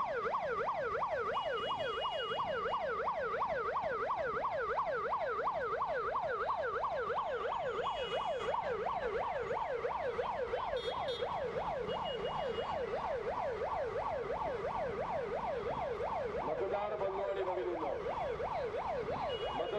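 Electronic siren in a fast yelp, its pitch sweeping up and down about four times a second without a break. It grows a little weaker near the end.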